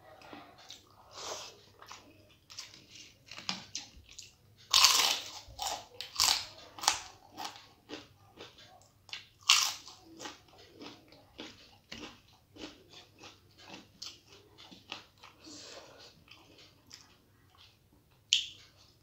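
Close-miked eating with the mouth: chewing with a run of sharp, crackling crunches, the kind made by biting crisp fried papad (lentil wafer). The loudest crunches come about five seconds and about nine and a half seconds in.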